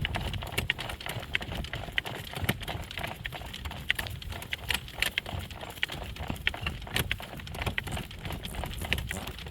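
A driving horse's hooves clip-clopping in a steady run of sharp strikes while it moves along a road in harness, with a low rumble underneath.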